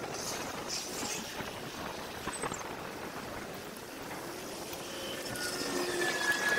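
Bicycle ride heard through a handlebar action camera at six times normal speed: a rushing jumble of wind and road noise. A steady high tone joins near the end.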